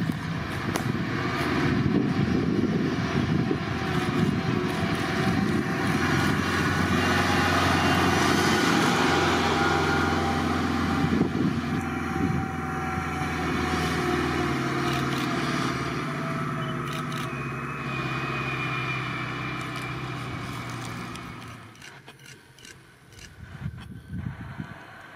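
Diesel engine of a Mercedes-Benz Unimog U5023 fire tender running steadily as the truck drives. The sound becomes much quieter for the last few seconds.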